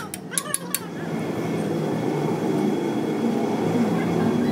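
Ratchet clicking in quick, even strokes as a threaded bolt is turned into the end of a truck trunnion shaft, stopping about a second in. A steady background rumble follows.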